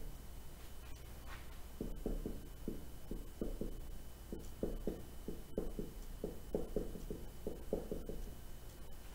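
Dry-erase marker writing on a whiteboard: a run of short strokes, several a second, over a steady low hum.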